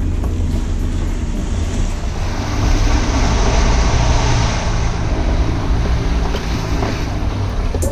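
Off-road 4x4's engine running under load on a muddy track, heard from inside the cabin. For a couple of seconds in the middle a louder rush of water and mud from the tyres rises over it as the car drives through a puddle.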